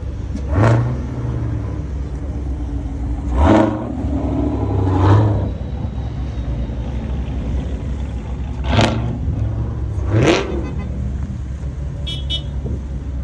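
Cars in a parade passing close by over a steady engine rumble, with about five short engine revs or pass-bys swelling up and dying away.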